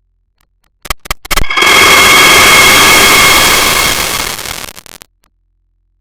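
Sound effect: a few sharp crackling pops, then a loud hissing rush of noise with a faint steady whistle in it, lasting about three seconds and fading out into a few crackles.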